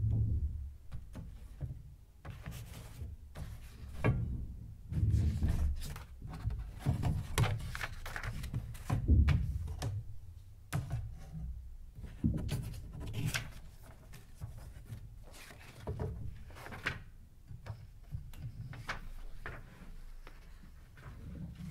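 Cardboard boxes being handled and shifted: an irregular run of dull thumps, light knocks and rubbing, starting suddenly.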